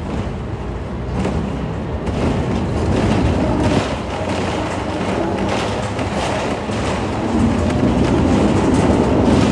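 Hong Kong double-decker tram running along its rails, heard from on board: a steady rumble of wheels and motor with rattling and repeated clacks as the wheels cross the track junction. It gets louder about two seconds in and again near the end.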